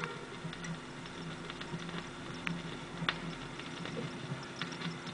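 Record player stylus riding the run-out groove of a 7-inch single after the song has ended: faint surface crackle and scattered clicks over a low, pulsing hum.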